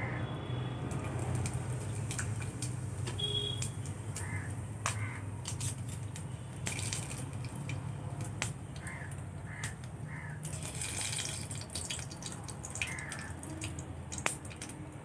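Cumin seeds and whole spices (bay leaves, cardamom, cinnamon) frying in hot oil in a non-stick kadai: a steady sizzle with sharp pops scattered throughout.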